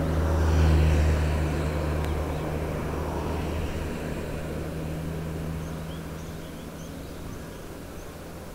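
A motor vehicle passes on the road, its low engine hum loudest about a second in and then fading away over the following seconds.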